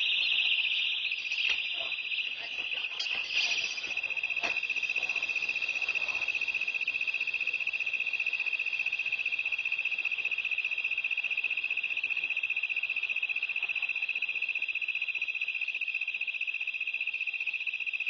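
Personal keychain self-defense siren alarm going off, heard through an outdoor security camera's microphone: a piercing high electronic tone, rapidly pulsing, that starts suddenly and sounds on without a break. A few knocks and rustles come in the first few seconds.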